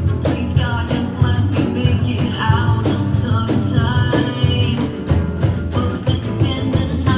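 A small rock band playing a song live and unplugged: guitar, bass and drums, with regular drum hits over a full bass line.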